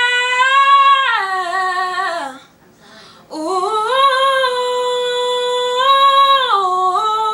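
A female voice singing a cappella: two long held 'ooh' notes, each stepping down in pitch at its end, with a short breath between them.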